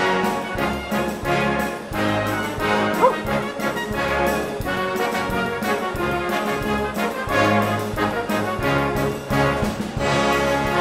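Background music: an orchestral piece led by brass instruments, playing a tune of held notes.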